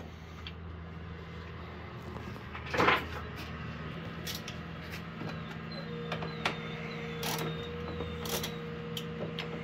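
Scattered clicks and knocks of hand work on parts, with one louder clatter about three seconds in, over a steady low hum.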